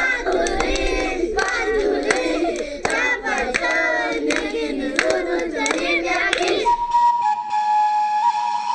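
A group of children singing and shouting together, with sharp claps at an uneven beat about once or twice a second. About seven seconds in the voices stop and a held musical note begins.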